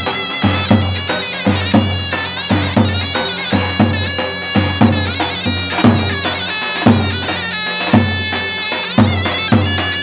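Zurna and davul playing Turkish folk music: the zurna carries an ornamented melody with wavering, gliding notes over the davul's steady beat, which falls heavily about once a second with lighter strokes between.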